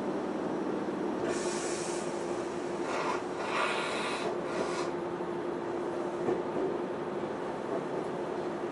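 Semboku Rapid Railway 5000-series electric train pulling out of a station, heard from inside the carriage: a steady running noise with a steady tone underneath. Two stretches of hissing scrape come through, briefly about a second in and again from about three to five seconds in.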